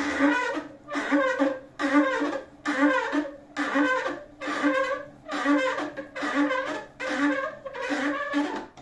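Hand-crank lift mechanism of an Ergostol Handle height-adjustable desk frame creaking as the crank is turned to lower the desk. It gives a pitched squeak about every 0.7 seconds, a sign that the mechanism is running dry and needs lubricating, which the owner finds too early after two months of use.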